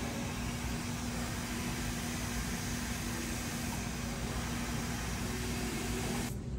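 Steady rushing blower noise with a low steady hum, cutting off abruptly shortly before the end.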